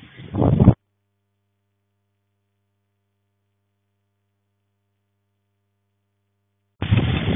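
Gusty wind buffeting the microphone in a heavy rainstorm. It cuts off abruptly under a second in, leaving near silence with a faint low hum for about six seconds, then comes back just as suddenly near the end.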